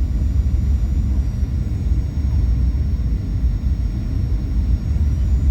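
Steady low rumble of a Boeing 737-800 heard inside the passenger cabin, engine and airflow noise with no distinct events.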